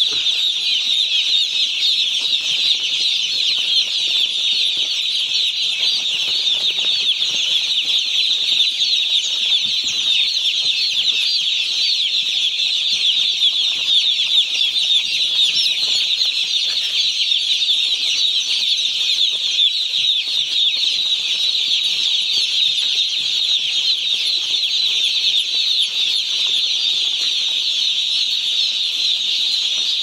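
A large flock of day-old chicks peeping together: a dense, continuous chorus of high-pitched chirps with no pauses.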